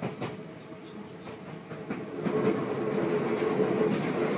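Train running, heard from inside the passenger carriage: a steady rumble with a few clicks, which grows louder about two seconds in, with a steady high tone over it.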